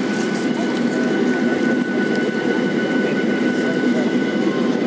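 Cabin noise of a Boeing 737-700 taxiing with its engines running: a steady rumble with a thin, steady whine over it.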